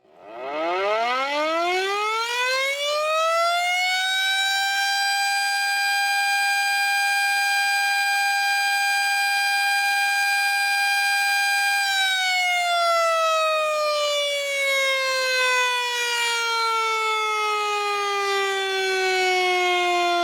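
Civil defense (air-raid) siren winding up from a low pitch to a steady high wail over about four seconds. It holds that pitch for about eight seconds, then slowly winds down.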